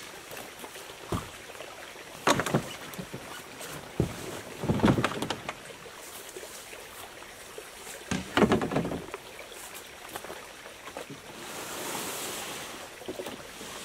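Camping gear being set into a Nova Craft canoe: a series of hollow knocks and clattering thumps against the hull, the biggest about two, five and eight and a half seconds in. A soft swishing hiss follows near the end.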